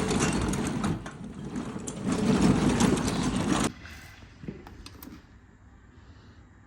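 A hand-held power tool runs in two bursts, about a second and then about a second and a half, stopping suddenly each time, as the engine cover's fasteners are driven back in. Then a few faint clicks and knocks.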